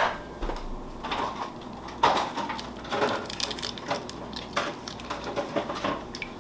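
Eggs being cracked against a glass mixing bowl: a sharp tap of shell on the bowl right at the start, then scattered softer clicks and crackling as the shell is broken and pulled apart by hand.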